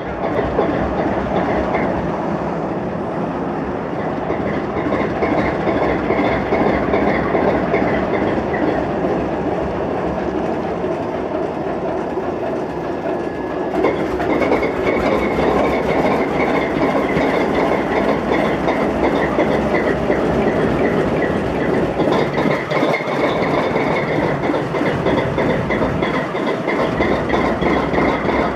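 GE Dash 8-32B locomotive's 12-cylinder GE 7FDL diesel running roughly just after its first start from storage. It is kept alive by hand bumps on the layshaft until it can idle on its own. About 14 seconds in it grows louder and fuller as it picks up, with heavy exhaust smoke.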